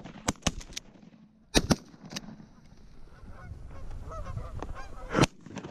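Shotgun shots fired at flying geese: several sharp shots near the start, a loud one about a second and a half in and another, the loudest, near the end. Geese honk in between.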